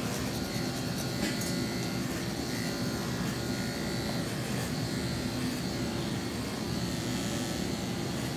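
Corded electric pet grooming clippers running steadily as they trim a dog's coat, a continuous buzzing with a thin high whine.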